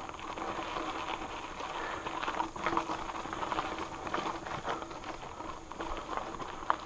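Mountain bike rolling over a rocky, gravelly dirt trail: tyres crunching over loose stones while the bike rattles, with frequent small irregular clicks and knocks.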